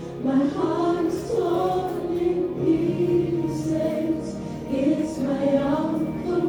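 Gospel song playing, with choir voices singing over sustained chords.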